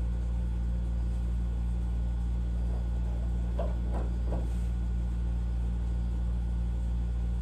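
Steady low hum in a workshop, with a few faint scratches of a hand scribe marking the deck lid about three and a half to four and a half seconds in.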